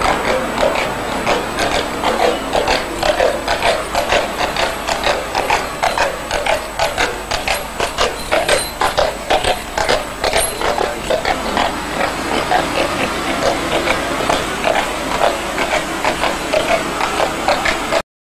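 Shire horse's hooves clopping on a tarmac street in a steady rhythm, about three beats a second, as it pulls a carriage. The sound cuts off suddenly near the end.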